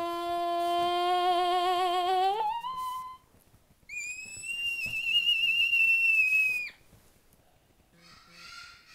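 A young child's voice holding a long wavering sung note that leaps up in pitch about two and a half seconds in, then, after a short pause, a long high-pitched squeal lasting nearly three seconds.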